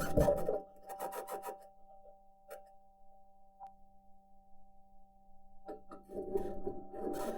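Perseverance Mars rover driving, heard through its onboard microphone: high-pitched scratching and grinding with bursts of clicks that stop after about a second and a half, leaving a faint steady hum, then start again about six seconds in. The scratching may come from the wheels and suspension working against the Martian surface, or may be electromagnetic interference from one of the rover's electronics boxes.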